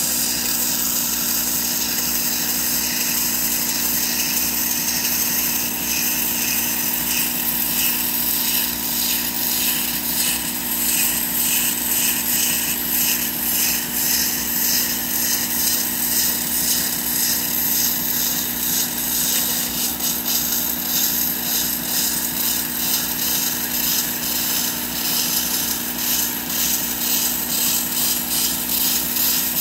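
Work Sharp belt sander with the Ken Onion blade grinding attachment, running at its lowest speed, with the serrated edge of a bread knife ground against its narrow abrasive belt. A steady motor hum sits under a hissing grind that pulses rapidly as the scalloped edge passes over the belt.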